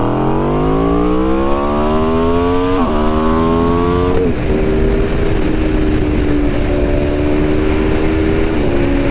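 Aprilia RSV4 1100 Factory's V4 engine at full acceleration, revving up through the gears with quick upshifts about three and four seconds in. It then holds a steady pitch and shifts up once more near the end, with wind noise over the microphone.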